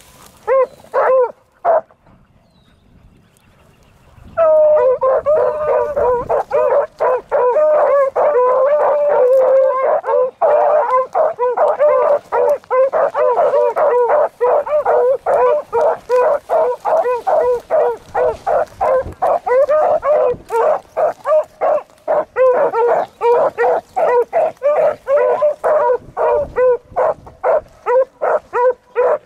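Beagles baying on a rabbit's scent line. A few bays come right at the start, then a pause of about two seconds, then from about four seconds in a steady run of rapid, overlapping bays.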